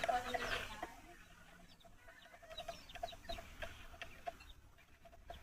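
Chicken clucking in a series of short, repeated clucks, with a voice fading out in the first second.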